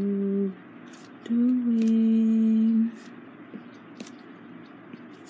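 A woman humming two held notes, a short one at the start and a longer steady one lasting about a second and a half, followed by a few faint light clicks.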